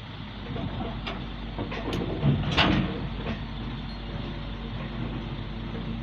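Heavy diesel machinery running steadily, with a few short metallic knocks and a louder clank about two and a half seconds in.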